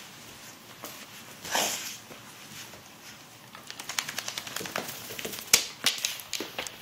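A dog's claws clicking and scrabbling on a hardwood floor in quick, uneven runs from about halfway in, with one sharper click near the end, as the wet dog dashes around. Before that there is a short rustle about a second and a half in.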